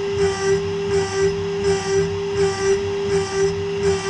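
Homemade CNC router's spindle milling a pocket in aluminium plate with an end mill, using an adaptive-clearing toolpath. A steady whine runs under a cutting noise that swells and fades in a regular rhythm, a little more than once a second.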